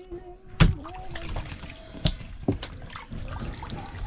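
A large bolo knife chops through fish onto a wooden cutting board with one loud thunk about half a second in, followed by a couple of lighter knocks and the slosh of fish pieces being handled in a metal basin of water.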